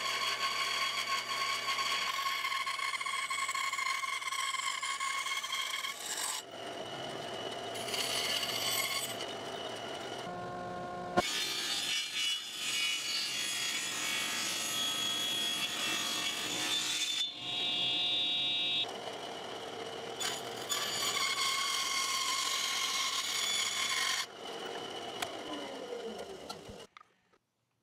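A band saw running and cutting through small pieces of wood: a steady motor and blade tone over the rasp of the cut. It comes in a series of short takes that switch abruptly.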